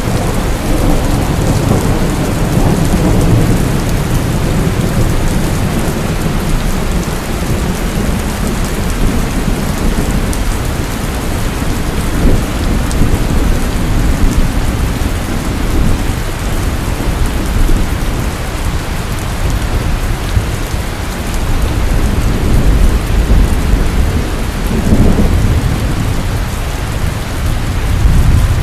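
Heavy rain falling steadily with thunder rumbling low under it, the rumble heaviest in the first few seconds and again near the end.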